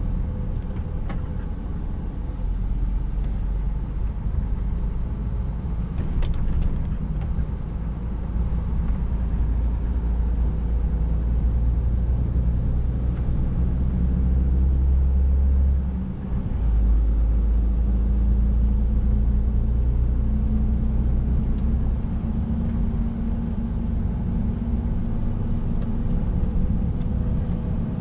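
Scania S460 truck's 13-litre six-cylinder diesel engine running on the move, heard from inside the cab as a steady low drone with road noise. It drops off briefly about halfway through, then picks up again.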